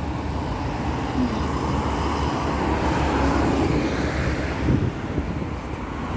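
Steady road traffic noise, a low rumble of passing vehicles that swells in the middle and eases off near the end.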